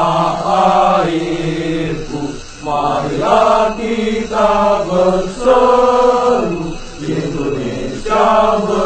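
Chanted vocal music: a voice sings long, drawn-out notes in slow phrases, with short breaks about two and a half and seven seconds in.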